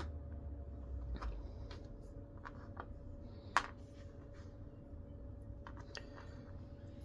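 Faint scattered clicks and taps of small parts on a Daiwa spinning reel's handle being worked by hand as the handle screw is snugged up, with one sharper click about three and a half seconds in. A faint steady hum runs underneath.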